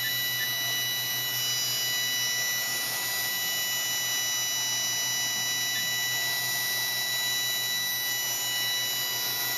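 Haas VF2 vertical machining center hand-jogging its X-axis, the servo-driven table travelling: a steady machine whine of several held high tones over a low hum, even throughout. It runs smoothly, with not a whole lot of harmonics.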